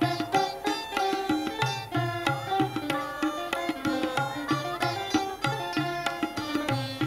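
An ensemble of Saraswati veenas playing a Carnatic piece in unison: a quick run of plucked notes, some bent in pitch, over a steady rhythmic pulse.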